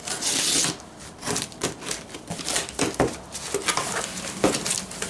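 A cardboard box being opened: the packing tape is slit with a blade and torn in a short rasp at the start, then irregular scrapes, taps and crinkles as the cardboard flaps and packing are pulled open by gloved hands.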